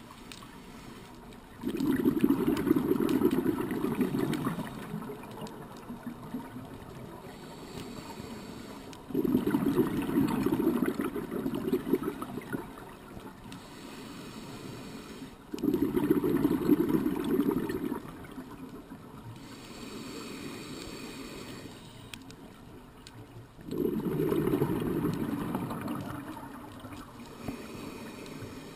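Scuba diver breathing out through a regulator underwater: four rushes of gurgling exhaust bubbles, each lasting two to three seconds, come about every seven seconds, with quieter gaps between them while the diver breathes in.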